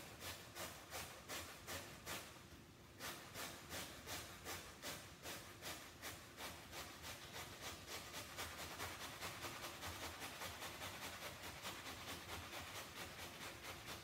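Peeled raw Yukon potato rasped by hand on a metal box grater: rhythmic scraping strokes, about two to three a second, with a brief pause about two and a half seconds in.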